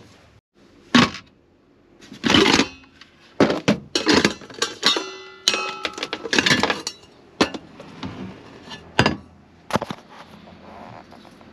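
A stainless steel electric pressure-cooker inner pot and other cookware clanking and knocking as they are handled and set down on a counter. A series of irregular clatters, one about five seconds in ringing briefly like struck metal.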